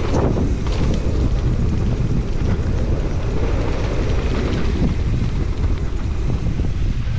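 Wind buffeting a GoPro Hero 10's microphone as a steady low rumble, over the noise of a mountain bike rolling down a dirt trail.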